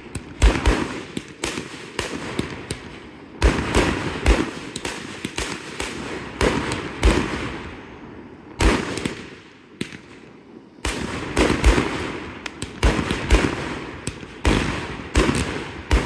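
Aerial fireworks shells bursting in a fast, irregular string of sharp bangs. The bangs ease off a little after the halfway point and then come thick again.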